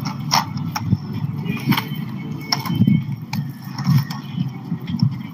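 Skate wheels rolling over pavement: a low, uneven rumble with scattered clicks and rattles.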